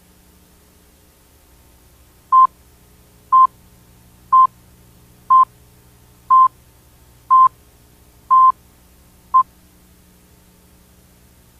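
Eight short electronic beeps of a single steady tone, one a second, the last one shorter, over a faint low hum.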